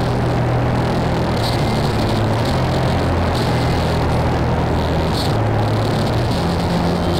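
Dark ambient noise music: a dense, loud droning wash with sustained low tones that step between pitches, and a hissing flare up high about every two seconds.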